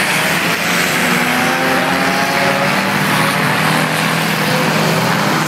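A pack of enduro stock cars racing on a dirt oval, many engines running at once in a loud, steady drone, their notes overlapping at different pitches.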